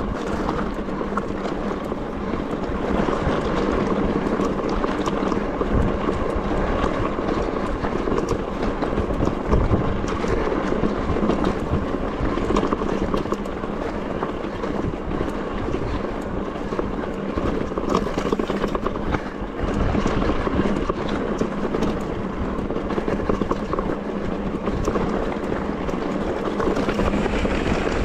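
Electric mountain bike rattling down a rough, rocky track: the tyres grind over stones and the frame, chain and components clatter continuously, with constant small knocks.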